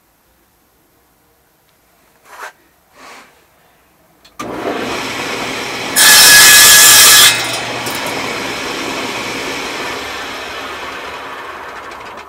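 Table saw crosscutting a 2-inch piece off a strip of 3/4-inch oak. The motor starts suddenly about four seconds in, the blade cuts through the oak loudly for just over a second, and the saw then runs on, slowly getting quieter. A couple of quiet handling sounds come before the motor starts.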